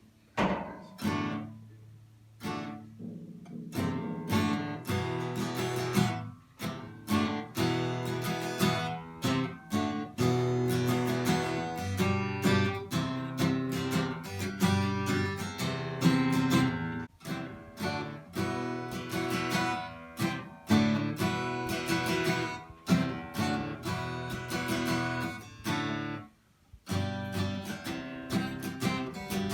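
Acoustic guitar music: a few single chords at first, then steady rhythmic strumming.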